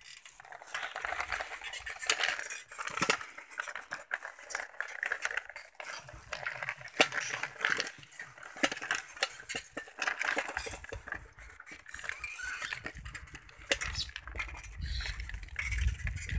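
An old roadster bicycle being ridden over a rough dirt track, rattling and clinking in quick, irregular metallic clicks. A low rumble joins after about ten seconds.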